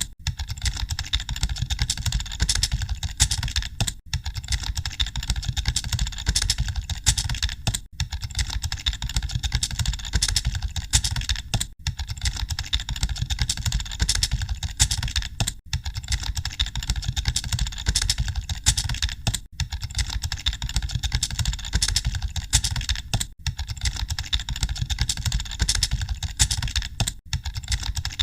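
Many computer keyboards clattering at once, a dense, continuous stream of keystrokes as in an exam hall during a typing test, over a steady low hum. The clatter briefly drops out about every four seconds.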